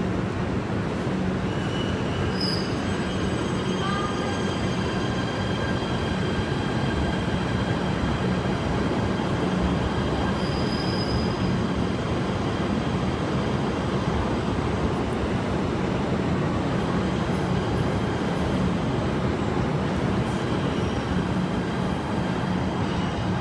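PATH PA-5 subway train pulling out and running past on an underground platform. A steady, even running noise carries a low hum and several thin high-pitched tones held steady above it.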